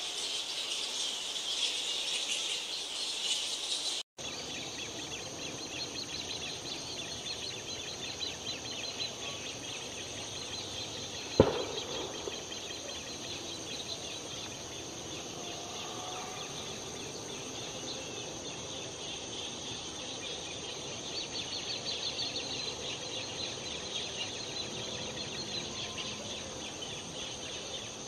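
Dense, steady chattering and squeaking from a straw-coloured fruit bat (Eidolon helvum) roost, with a steady high hiss over it. There is a brief break about four seconds in and a single sharp knock about eleven seconds in.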